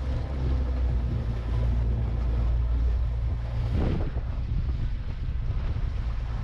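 Small skiff under way: a steady low drone of the outboard motor and hull, mixed with wind buffeting the microphone, with a brief rush of noise about four seconds in.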